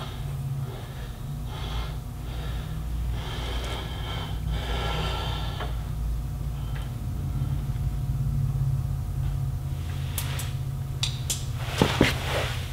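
A mechanic breathing hard as he works on a truck's starter wiring, over a steady low hum. Near the end come a few sharp metallic clinks of hand tools.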